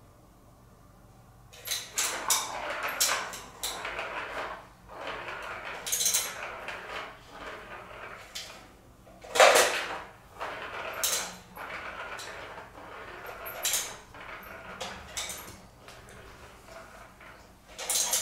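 Plastic ball rolling and rattling around a cat's plastic circuit track toy as a cat bats at it, in irregular bursts with sharp clacks, starting about a second and a half in; the loudest knock comes a little past halfway.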